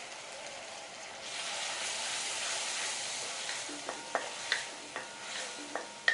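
Ginger garlic paste and fried onions sizzling in hot oil in a pan. The sizzle swells a little over a second in. Then a spoon knocks and scrapes against the pan in a run of separate clicks as the mixture is stirred.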